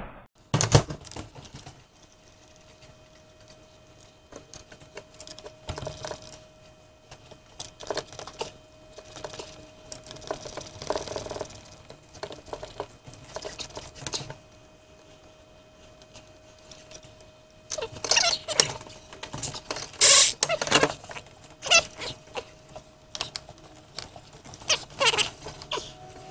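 Hand work in an engine bay: scattered clicks, knocks and rustling of plastic and rubber intake parts and clamps being handled and worked loose, busiest about two-thirds of the way through. A faint steady hum sits underneath.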